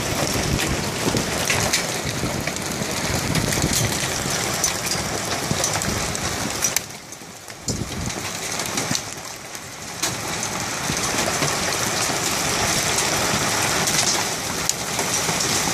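Hailstorm: small hailstones and rain falling hard on the ground, a dense clatter of countless small impacts. It drops briefly quieter about seven seconds in and again about nine seconds in.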